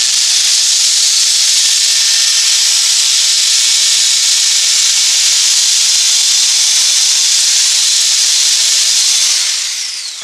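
Genesis right-angle drill running at speed with a small sanding disc pressed against a wooden board: a loud, steady hiss of abrasive on wood over the motor's whine. Near the end the drill is let off and its whine falls away as it winds down.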